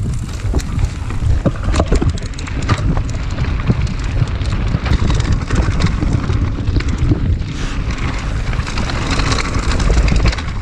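Mountain bike descending a dusty, rocky gravel trail: tyres rumbling and crunching over loose stones, with frequent rattles and knocks from the bike, and wind buffeting the chest-mounted camera's microphone.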